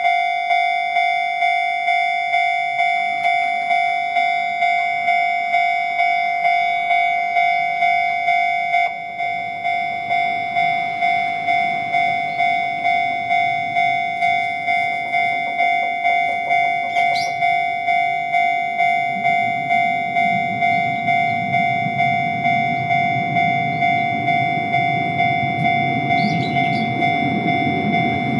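Japanese level-crossing warning alarm ringing, its electronic bell tone striking a little under twice a second. From about two-thirds of the way in, the rumble of an approaching train builds underneath it.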